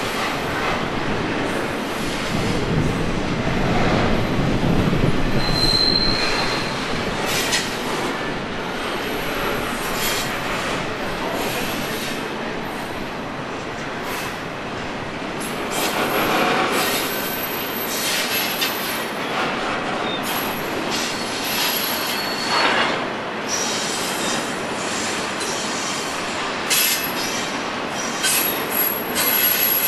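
Union Pacific double-stack container freight train rolling past: a steady rumble of steel wheels on rail with short clicks from the cars, and brief high-pitched wheel squeals, the clearest about six seconds in.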